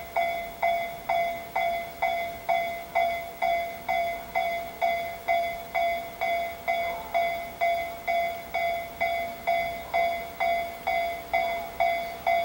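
Japanese electronic level-crossing warning bell ringing in a steady, even rhythm of about two and a half strikes a second, each strike a bright ding that fades quickly. The crossing alarm signals a train approaching.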